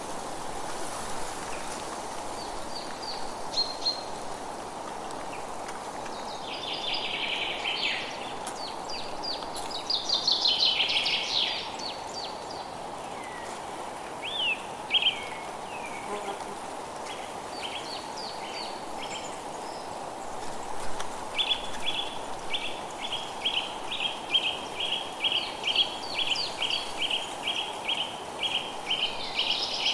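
Forest ambience: several songbirds calling over a steady background hiss. In the second half, one bird gives a long run of quick, evenly repeated chirps, about two or three a second.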